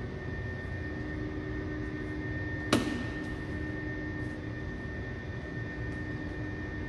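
Steady background hum with a faint high whine, and a single sharp knock a little under three seconds in.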